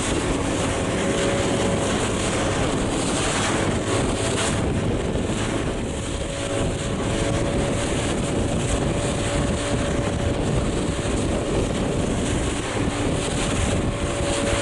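Wind buffeting the microphone over a steady engine hum from a moving boat on open water.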